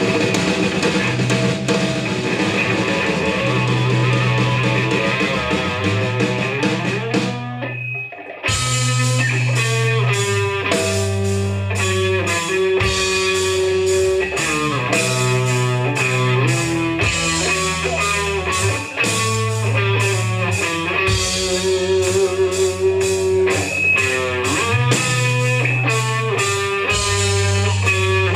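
Punk rock band playing live: electric guitar, bass and drum kit. About eight seconds in the band stops for a moment, then comes back in with a steady driving beat.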